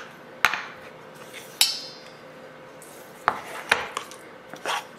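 Kitchen containers being handled over a stainless steel mixing bowl while seasoning is added: five or so scattered clinks and knocks, the one about a second and a half in ringing briefly.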